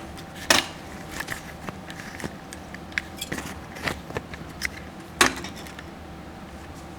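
Scattered clicks and knocks of handling, the two loudest about half a second in and just after five seconds, over a faint steady hum.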